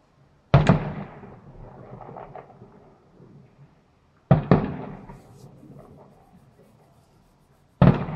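Fireworks bursting: three loud bangs about three and a half seconds apart, each followed by a fading rumble, with a few fainter pops between them.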